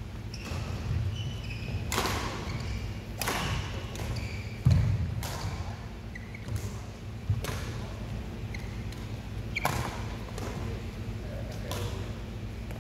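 Badminton rally: sharp cracks of rackets striking a shuttlecock about every one to two seconds, with footfalls thudding and shoes squeaking on the court.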